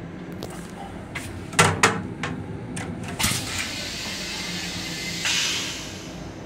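Clicks and knocks inside the restroom of a Long Island Rail Road M7 railcar, over a steady low rumble. Two sharp, loud clacks come about a second and a half in, then a rush of noise, and a hissing rush near the end.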